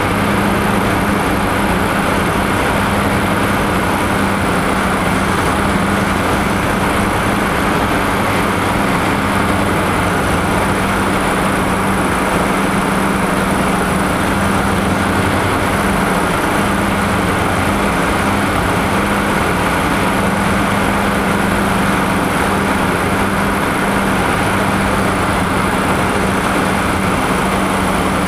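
Diamond DA42 twin-engine aircraft heard from inside the cabin on final approach: the engines and propellers make a steady, unchanging drone with a low hum, over a constant rush of noise.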